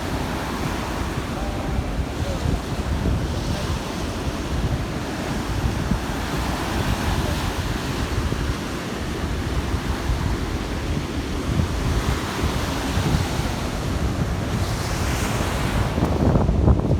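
Stormy sea surf: waves breaking and washing up the beach, with wind buffeting the microphone in low rumbles. One wave surges louder a couple of seconds before the end.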